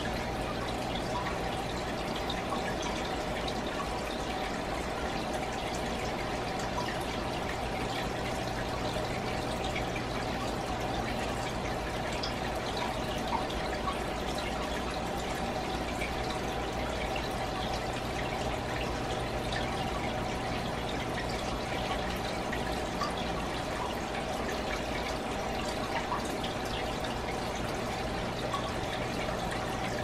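Fish aquarium water trickling and dripping steadily over a low, even hum from the tank's running pump.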